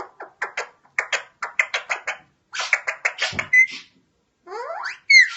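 Alexandrine parakeet chattering: a quick run of short calls, about four or five a second. After a pause come a few rising notes, then one loud high call near the end.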